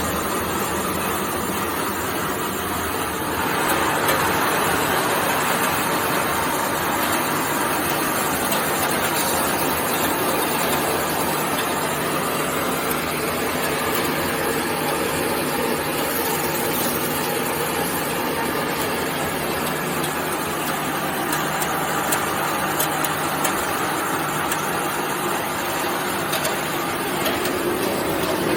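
Instant rice milling and destoning machine running with a steady mechanical noise, which grows louder and hissier about three and a half seconds in.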